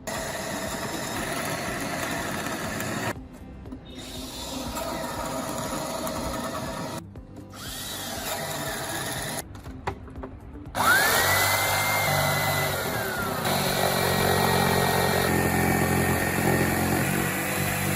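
Power tools at work on the kitchen worktop in several short edited bursts. About eleven seconds in, a motor spins up to a high whine, holds briefly and winds down, while another tool keeps running.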